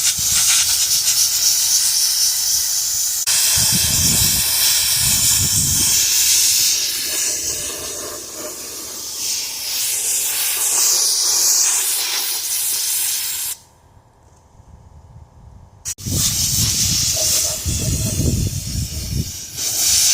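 Central Machinery sandblaster spraying grit with compressed air, a loud steady hiss. It cuts off for about two seconds roughly two-thirds of the way through, then starts again.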